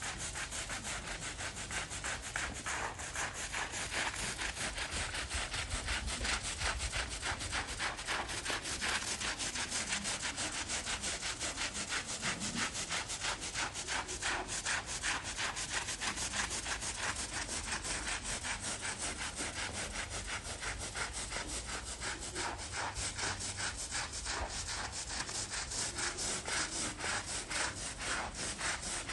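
Long-handled scrub broom scrubbing a wet, soapy rug in quick, steady back-and-forth strokes: a rhythmic wet rubbing and scraping over the pile.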